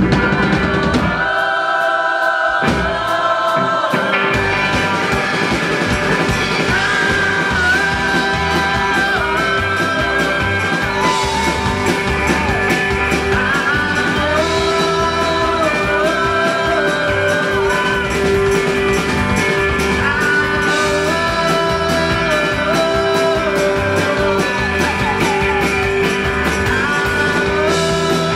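Live rock band playing a song with singing. The drums and bass drop out about a second in and come back in a few seconds later.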